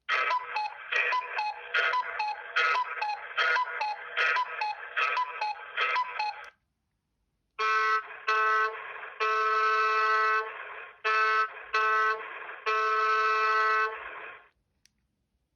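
Default ringtones of an Alcatel OT 715 mobile phone, one after the other. The first is a quick run of short electronic notes lasting about six seconds. After a gap of about a second comes a second tune of longer, held notes with short breaks.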